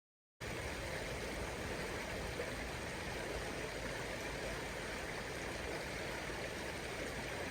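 Steady rushing of a flowing river, starting after a split second of dead silence.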